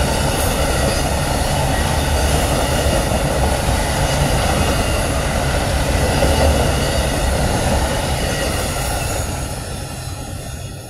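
Amtrak Auto Train's enclosed auto-carrier cars rolling past, a steady loud rumble of steel wheels on rail. It fades from about eight seconds in as the last car goes by.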